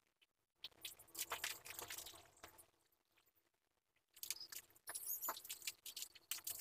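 Crinkling and rustling of papers being handled: two spells of dense little crackles, each about two seconds long, with a quiet gap of about a second between them.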